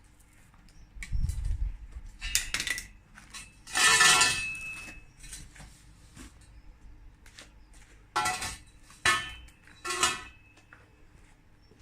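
Steel parts clanking and ringing as they are handled: a dull thump about a second in, then several sharp metallic clanks, the loudest about four seconds in and three more close together near the end.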